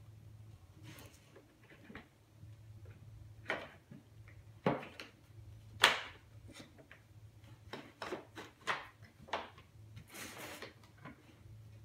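Wooden display panels being handled, set down and slid into place on a table: irregular wooden knocks and clacks, the loudest about six seconds in, with a brief scraping slide a little after ten seconds.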